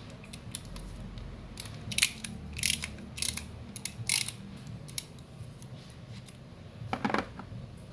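Steel socket-set tools clinking and clicking as they are handled and taken from a tool kit case: scattered light clicks, with a few louder metallic knocks.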